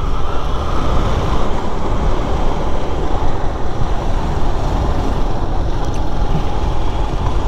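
Loud, steady wind rush on the microphone of a moving motorcycle, with engine and road noise underneath.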